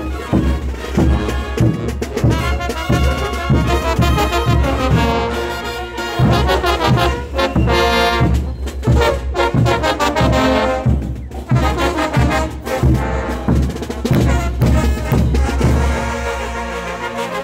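Live brass band playing a morenada: trombones, euphoniums, sousaphones and trumpets over a steady, even beat.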